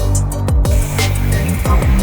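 Electronic music with a heavy, sustained bass, deep drum hits that drop in pitch, and sharp hi-hat ticks.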